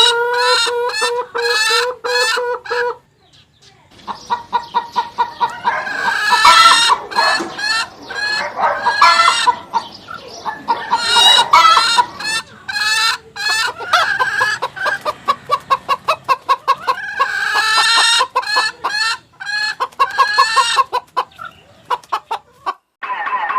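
Chickens clucking and calling in quick, repeated pitched notes, with a short pause about three seconds in and another near the end.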